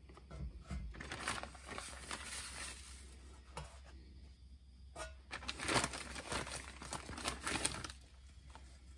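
Plastic zip-top bag crinkling and rustling as a hand rummages in it for sugar-coated biscuit pieces, in two louder spells, about a second in and again around the middle.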